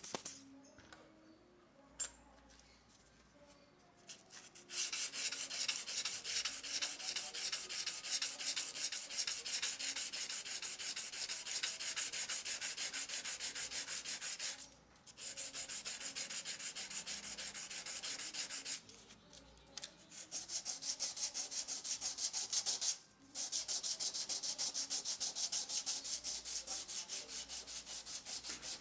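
Hand sanding a laser-engraved metal watch dial plate with sandpaper, the stage that smooths the blank before painting. Quick, even back-and-forth rubbing strokes start about five seconds in and are broken by three short pauses.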